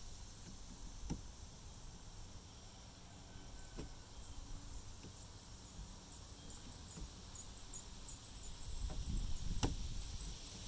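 A few light, sharp clicks and handling noise from a plastic wiper blade and its arm adapter being worked by hand, the loudest click about nine and a half seconds in.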